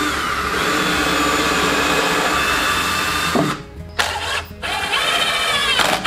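Cordless drill/driver running under load as it drives into a 2x4 hive leg, in two long runs: one of about three and a half seconds, then after a short pause a second of about two seconds that rises in pitch near its end.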